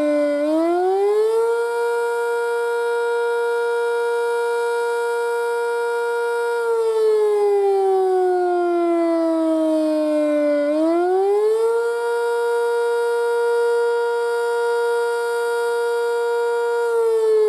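Sentry 5V outdoor warning siren sounding the attack signal, a slow wail. It rises in pitch over about a second, holds steady for about five seconds, then slides down over about four seconds. It then rises again and holds, beginning to fall once more near the end.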